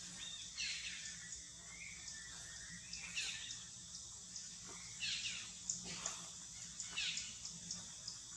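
Macaque giving a series of short, high cries that fall in pitch, repeated every second or two.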